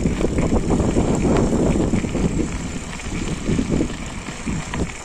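Forever FM075 mountain bike riding down a rocky trail: a steady rumble of tyres on rough ground with irregular knocks and rattles from the bike over bumps, growing quieter near the end.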